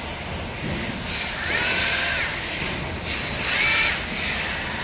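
Power drill run in two short bursts about a second long, its whine rising as it spins up and falling as it stops.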